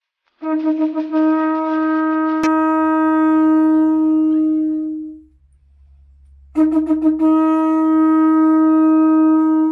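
Pututu, an Andean conch-shell trumpet, blown in two long blasts of about four to five seconds each. Each blast sputters at the start, then holds one steady note and fades out.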